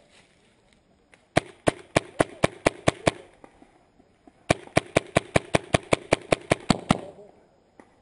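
Magfed paintball marker firing two rapid strings of shots, about eight and then about a dozen sharp pops, at roughly four to five shots a second.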